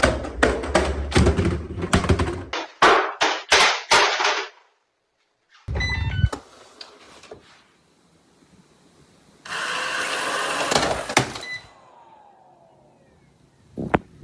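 A rapid run of hard knocks and thuds from a robot vacuum cleaner tumbling and hitting hard surfaces. They stop with a sudden cut to silence, then come a short loud thump and, later, a couple of seconds of hiss.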